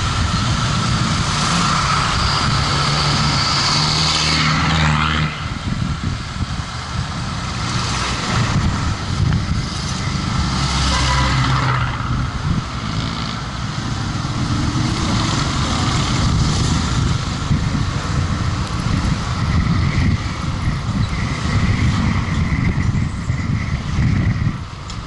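Steady running noise of a moving road vehicle with the engine and tyres rumbling and other traffic around it. A high whine runs for the first five seconds and stops as the level dips, then the running noise carries on with small rises and falls.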